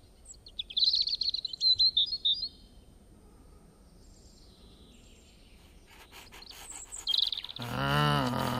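Small songbirds chirping and twittering for a couple of seconds. Near the end, after a few faint clicks, a loud electric school bell starts ringing steadily.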